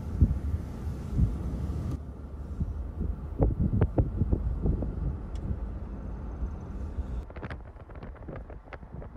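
Wind buffeting the microphone outdoors, a low rumbling noise that swells and dips, then a run of light, sharp taps over the last couple of seconds.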